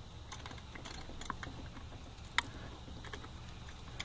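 A few faint metal clicks from a socket and extension as a small 5.5 mm bolt is turned by hand, trying to thread into the coil pack and not catching easily. The sharpest click comes about two and a half seconds in, over a low steady hum.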